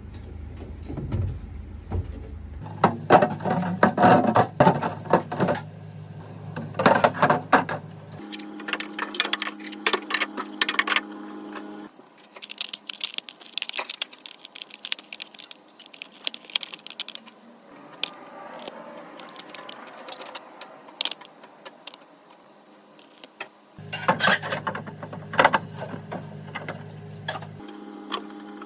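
Clinking and clattering of dishes and containers being handled, in short bursts over a steady low hum that changes abruptly several times.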